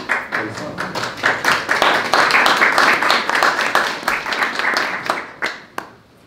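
A small group applauding: claps start suddenly, hold steady for about five seconds, then die away with a few last single claps.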